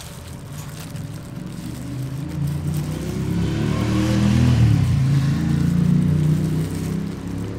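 A motor vehicle engine passing close by: it grows louder, peaks about four to six seconds in with its pitch dropping as it goes past, then starts to fade near the end.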